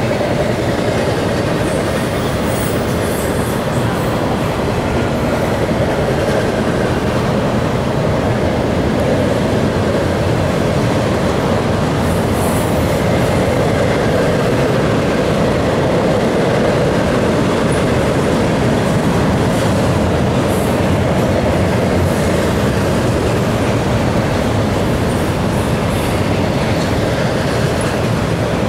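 CSX intermodal freight train's cars rolling past at speed: a steady loud rumble of steel wheels on rail, with brief high-pitched wheel squeals now and then.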